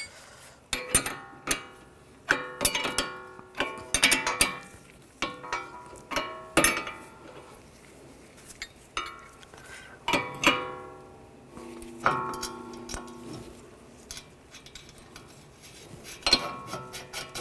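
Metal tools and a bearing puller clinking and ringing in irregular sharp strikes, each with a short ringing tail, while the puller is worked on the hub to draw off a stuck wheel bearing race.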